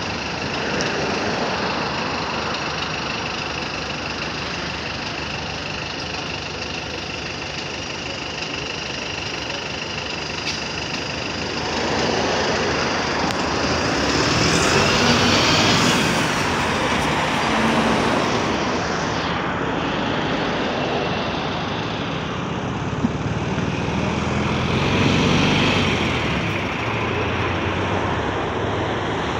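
PAZ Vector Next city bus engine running at a stop amid street traffic, then pulling away and passing close by about halfway through with a whine that rises and falls. Another bus engine swells near the end.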